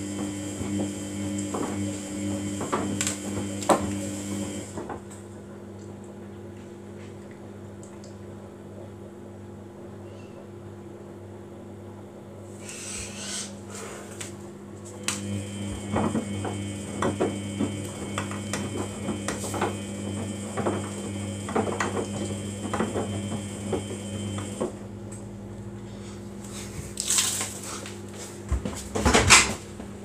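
Samsung front-loading washing machine in a wash cycle: the drum motor hums as the drum tumbles wet laundry, with scattered clicks and knocks. The motor stops about 5 s in, starts again about 15 s in and stops once more about 25 s in. A louder clatter comes near the end.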